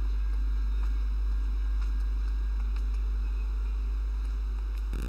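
Steady low electrical hum in the recording, with a few faint ticks and no speech.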